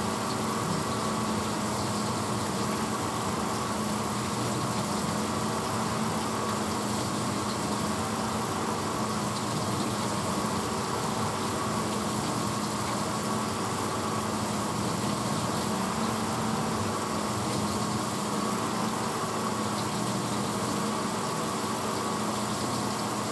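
1986 Hotpoint Potwasher dishwasher running mid-cycle: a steady motor hum over an even rushing noise, with no change throughout.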